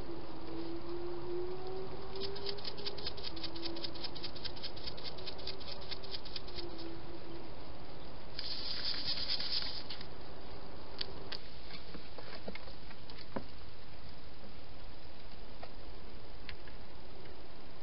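A European hedgehog rustling through dry grass and leaf litter: a run of quick crackling ticks, then a short, louder rustle. A constant hiss runs beneath.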